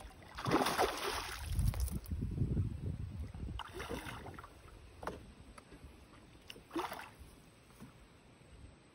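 Water splashing as a hooked pirapitinga thrashes at the side of a wooden boat, followed by a few short knocks.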